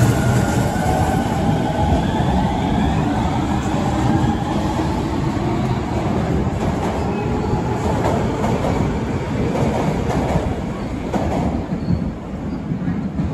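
Osaka Metro 20 series subway train running, its motors whining in several tones that glide in pitch over the first half, then wheel knocks over the rail joints, with the sound easing off near the end.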